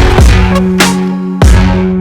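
Electronic background music with a heavy, regular beat and held synth notes between the beats.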